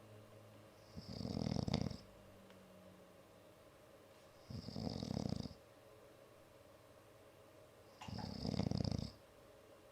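A woman snoring in her sleep: three rattling snores, each about a second long and about three and a half seconds apart, with quiet breathing between them.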